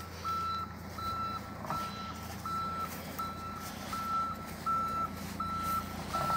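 A vehicle's reversing alarm beeping at one steady pitch, about one beep every three quarters of a second, over a steady low engine hum.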